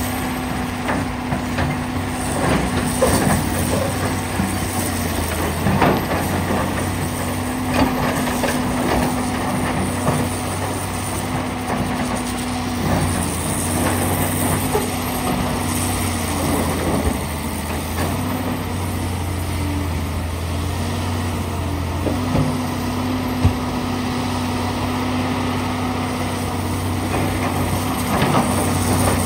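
Komatsu PC450LC excavator's six-cylinder diesel engine running steadily under digging load, with scattered knocks and clatter of rock against the bucket and tracks, more frequent in the first part.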